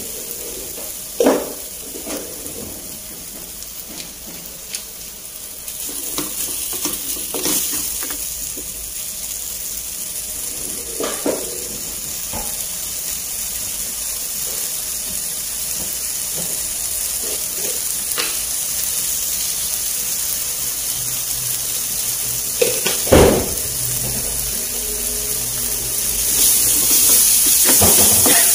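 Shredded vegetables sizzling in a stone-coated non-stick frying pan while being stir-fried with a wooden spatula. The spatula knocks and scrapes against the pan now and then, most sharply about three-quarters of the way through. The sizzle grows louder near the end.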